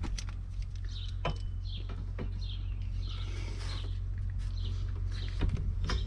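Scattered light metallic clicks and clinks as drum-brake springs and shoe hardware are worked loose by hand, over a steady low hum.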